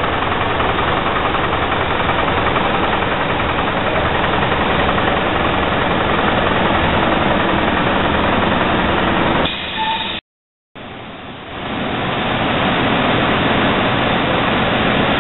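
Tectex Tandem needle-punching loom running, a loud steady mechanical noise from the needle boards punching the fibre web. The sound cuts out for about half a second roughly ten seconds in, then comes back.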